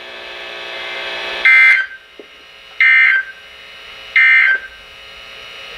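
NOAA Weather Radio's Emergency Alert System end-of-message code: three identical short, raspy digital data bursts, about a second apart, marking the end of the warning broadcast. A faint steady hum from the radio runs before them.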